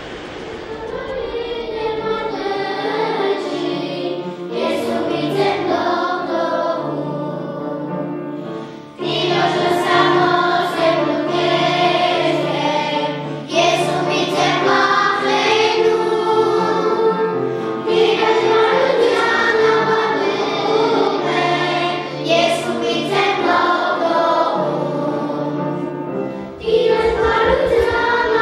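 A choir singing a Christian song about Jesus as saviour, with a steady instrumental accompaniment; it fades in over low vehicle rumble in the first couple of seconds and grows louder about nine seconds in.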